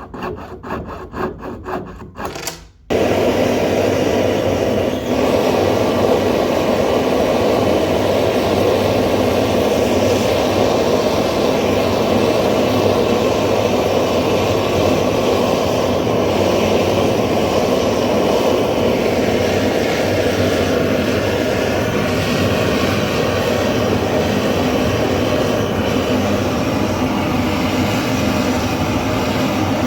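Quick, even rasping hand strokes of a jeweller's tool on metal for the first few seconds. Then a motorised bench tool abruptly starts and runs steadily, a loud hum with a rasping noise on top.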